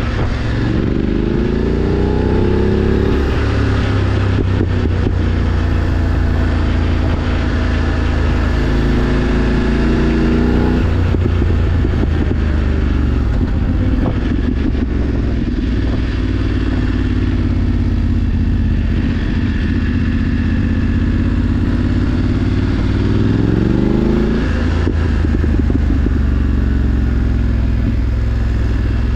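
BMW F 850 GS Adventure's parallel-twin engine under way, its pitch climbing as it accelerates, then dropping back at gear changes. The sharpest rev climb and upshift comes near the end, and the bike holds a steady cruise in between.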